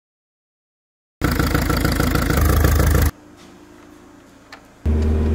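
Citroën 1.6 HDi diesel engine running loud, cut off suddenly after about two seconds. A quieter stretch follows with a faint steady hum and a single click, then the engine is heard running again near the end.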